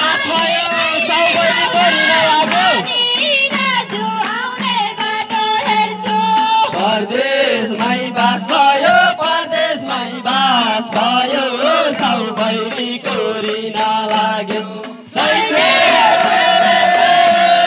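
Group singing of a Deuda folk song with madal drums beating along. About fifteen seconds in the sound dips briefly, then the voices come back on a long held note.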